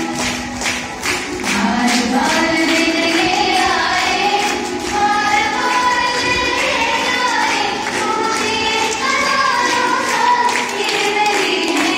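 A large group of children singing together in chorus, with rhythmic hand clapping keeping the beat.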